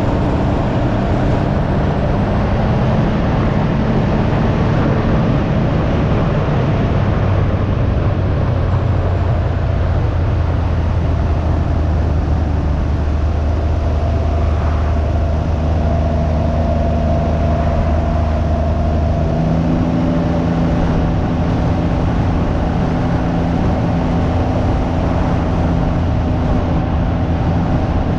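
Can-Am Ryker 900's three-cylinder engine running steadily under way, with wind rushing over the microphone. About two-thirds of the way through the engine note steps up in pitch.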